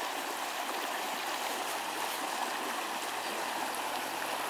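Shallow stream running across a dirt-track ford: a steady rush of flowing water.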